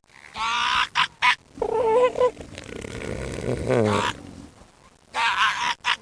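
Seals calling: four drawn-out cries of wavering pitch with short gaps between them, the one near four seconds sliding down low.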